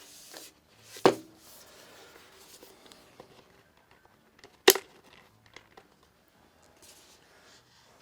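Plastic spring clamps of fiberglass-reinforced nylon snapping shut onto the edge of a glued-up wooden piece: two sharp snaps, one about a second in and a louder one a few seconds later, with faint handling and rustling between.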